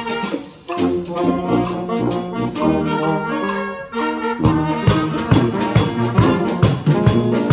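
Street brass band playing: saxophones, trumpets and sousaphone together, held chords for the first half, then a bouncy rhythmic bass line kicks in about halfway through.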